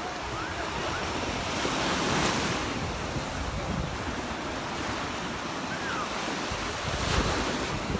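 Surf washing onto the beach, with wind buffeting the microphone; the wash swells briefly about two seconds in.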